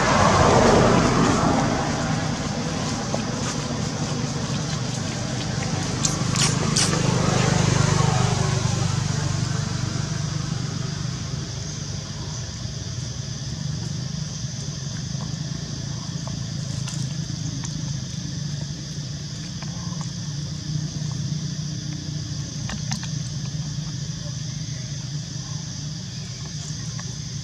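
Motor vehicle engine noise: a steady low hum that swells and fades twice in the first ten seconds, then carries on more evenly.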